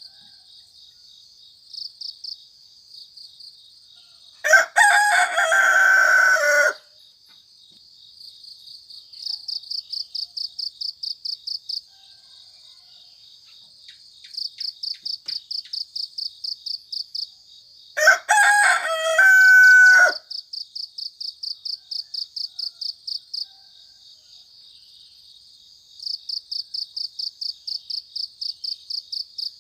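A rooster crows twice, each crow about two seconds long, over crickets or other insects chirring steadily in high, rapid pulsed trills that come in runs of a few seconds.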